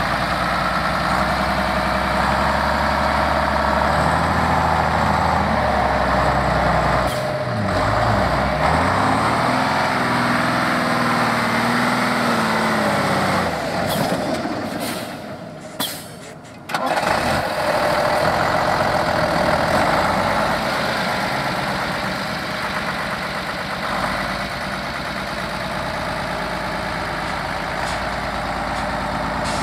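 Saurer 6DM off-road truck's diesel engine working through soft sand dunes, its pitch rising and falling as it is revved, then running more steadily. The sound drops away briefly about halfway through.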